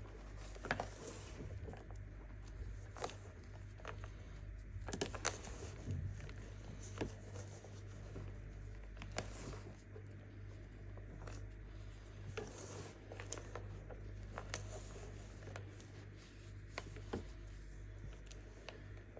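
Compressed baking soda being crushed and crumbled by hand: irregular crunches and sharp crackles, some louder than others, over a steady low hum.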